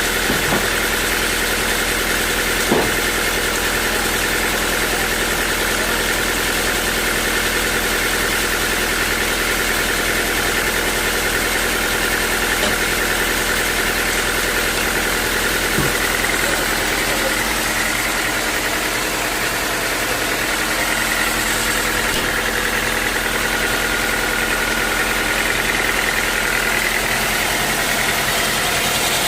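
Sawmill machinery running steadily, a loud even mechanical noise with a constant whine, broken by a brief knock about three seconds in and another a little past the middle.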